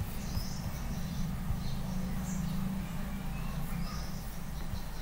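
Steady low background hum with faint, scattered high chirps.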